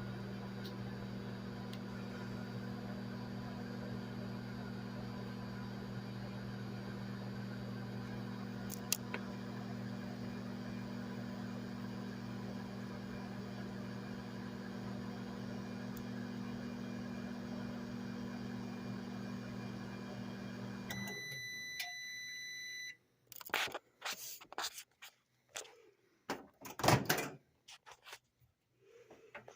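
Microwave oven running with a steady hum, which stops about 21 seconds in. It then beeps for about two seconds at the end of its cycle, followed by a run of knocks and clatters, the loudest near the end.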